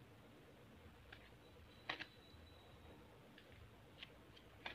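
Near silence with a few faint ticks and taps, the loudest about two seconds in and two more near the end: the stiff cardboard pages of a small board book being turned and handled.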